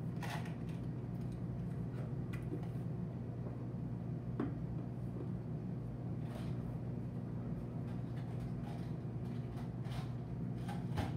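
A steady low hum with a few scattered light clicks and knocks of things being handled in a kitchen.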